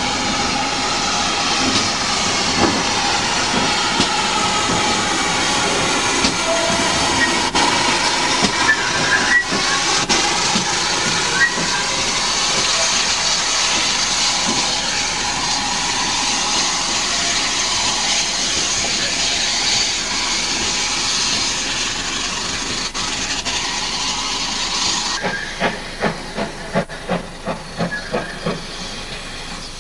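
Steam locomotive standing with a steady, loud hiss of escaping steam. About 25 seconds in this gives way to a run of exhaust chuffs, about two a second, from a locomotive working along the line.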